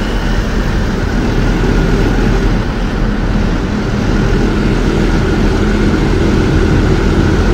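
Steady engine and road rumble heard from inside the cab of a Tata goods truck on the move.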